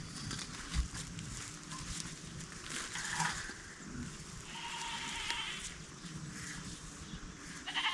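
Goats bleating: one wavering bleat of about a second near the middle, and a louder one starting just before the end.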